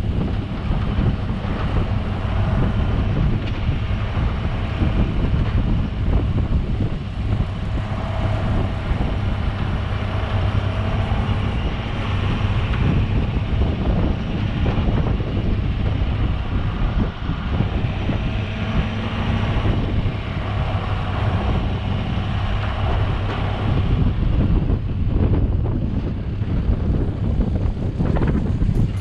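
Truck driving, its engine giving a steady low drone under road and wind noise.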